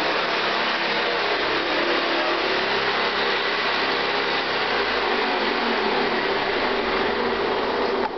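1970s Hoover Convertible U4127 upright vacuum cleaner running steadily, then cutting off near the end.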